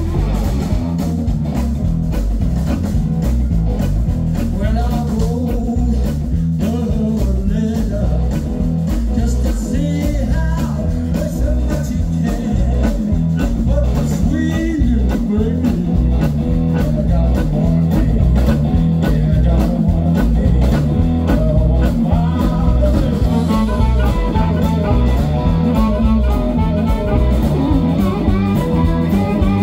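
Live blues-rock band playing: electric guitar, bass guitar and drum kit, with a blues harmonica played into a vocal microphone carrying held, wavering lead notes near the end.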